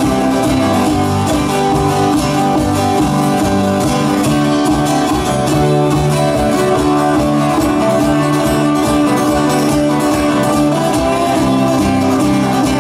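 Live band playing country-style music: electric and acoustic guitars strummed over bass and drums with a steady beat.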